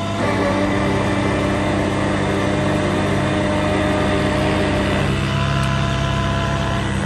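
Army 5-ton wrecker truck's engine idling steadily.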